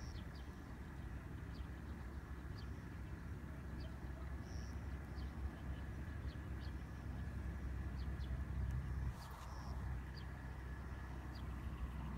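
Outdoor background: a steady low rumble and a faint thin whine, with short high chirps repeating every half second to a second.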